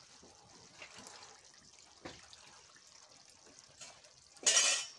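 Chicken curry bubbling and sizzling in an open kadai over a wood-fired clay chulha, with a few faint crackles from the burning wood. A loud hiss lasting about half a second comes near the end.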